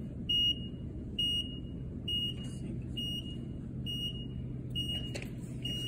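Two-post vehicle lift lowering a car, its warning beeper giving a short high beep about once a second over a low steady hum. There is a sharp click about five seconds in.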